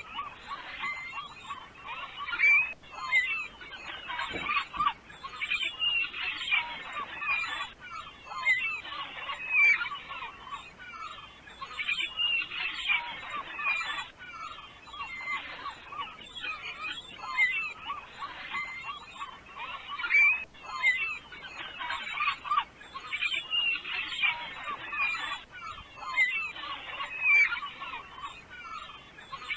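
A flock of birds calling, many short calls overlapping in a dense chorus that swells and ebbs every few seconds.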